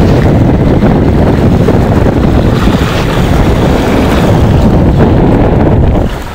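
Strong wind buffeting the microphone aboard a sailboat under way, over the rush of water in the boat's wake; the noise drops sharply about six seconds in.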